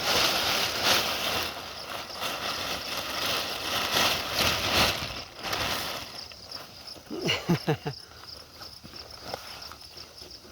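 Plastic raincoat rustling in loud, irregular bursts as it is handled and pulled over a backpack, fading after about six seconds, with crickets chirping steadily in the background. A brief vocal sound comes about seven seconds in.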